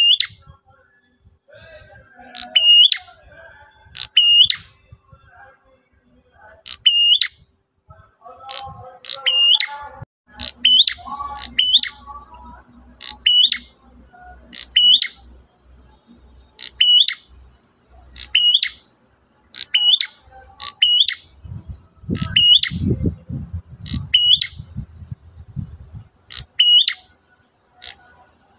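A prenjak merah calling over and over, each call a pair of sharp, piercing notes that drop steeply in pitch, repeated about every second and a half. Softer chatter sits underneath in the first half, and a low rumbling noise comes in for a few seconds past the middle.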